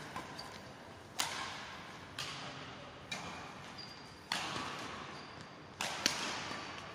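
Badminton rally: racquets smacking a shuttlecock six times at uneven intervals of about a second, each sharp hit echoing through a large sports hall.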